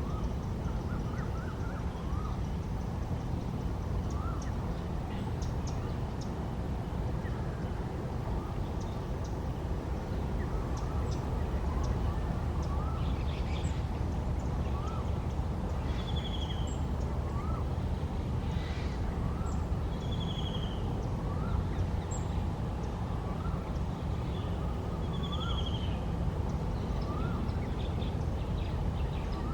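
Birds calling over a steady low rumble: a short rising note repeated about every two seconds, and from about halfway through a brief higher trill about every four seconds.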